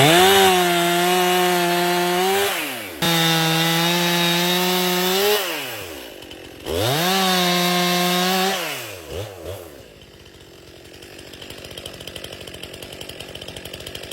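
Stihl MS 261 C chainsaw at full throttle in three bursts of about two seconds each. Each burst drops back with a falling pitch. After them comes a quieter, fast-pulsing engine sound.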